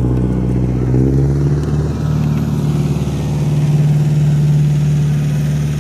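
An engine running steadily nearby, a loud low hum whose pitch shifts slightly about a second in and then holds steady.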